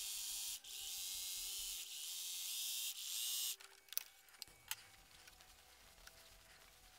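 Vintage electric sewing machine stitching steadily in quick runs, with two brief stops, as quilt squares are fed through one after another. It stops a little past halfway, leaving only light clicks and handling sounds.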